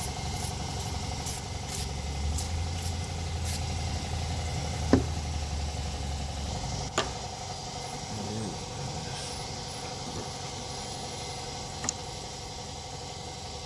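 Steady mechanical hum with a low rumble for the first half. Over it come a quick run of short, hissy ticks in the first few seconds and a few sharp clicks of work on metal, the loudest about five seconds in.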